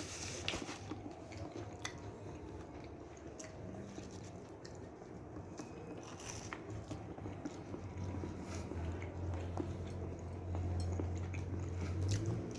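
A person chewing a bite of crispy fried pastel, with small crunches and wet mouth clicks. A low steady hum grows in over the second half.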